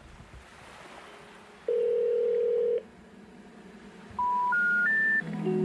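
Electronic beeps: one long, low steady beep about two seconds in, then three short beeps rising in pitch step by step near the end.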